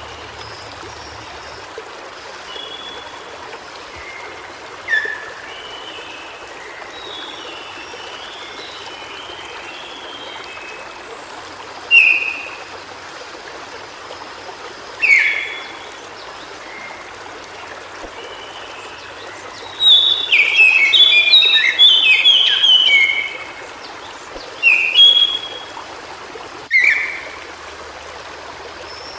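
White-browed shortwing singing over the steady rush of a stream: scattered short whistled notes, several loud single slurred notes, and about twenty seconds in, a fast jumbled warble lasting a few seconds.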